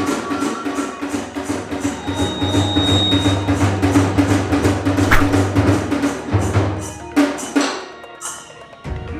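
Iwami kagura ensemble music: drums and hand cymbals beating a fast, even rhythm over a held tone. The beating dies down about eight seconds in.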